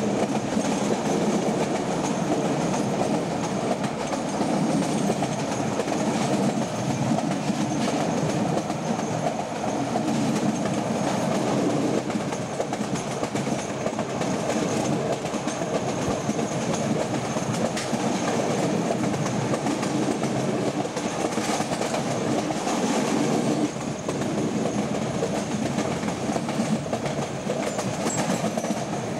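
Metre-gauge passenger coach running at speed, heard through its open door: a steady rumble and clatter of wheels on the track.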